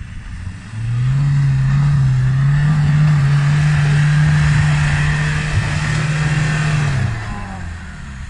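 Land Rover Defender's engine revving hard under load as it pulls through deep mud. The engine note rises about a second in, holds steady, then eases off near the end.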